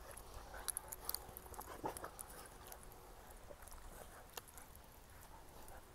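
Faint scuffling of a Siberian husky and an Alaskan malamute mix play-fighting, with a few soft clicks.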